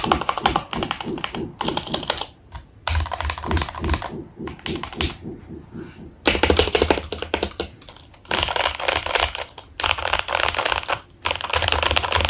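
Fast typing on a Tes-68 mechanical keyboard with Gateron Milky Yellow linear switches: dense runs of keystrokes, broken by several short pauses.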